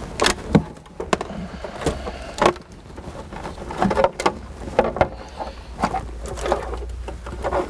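Hard plastic interior trim being worked loose and lifted off metal floor brackets: a string of irregular clicks, knocks and light scraping.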